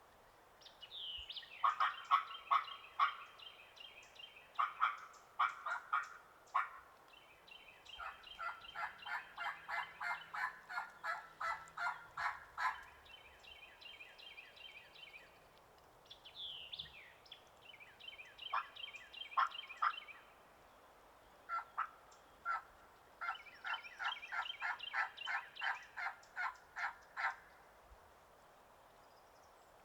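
Turkey yelping: several bouts of evenly spaced raspy notes, about two to three a second, with short pauses between the bouts.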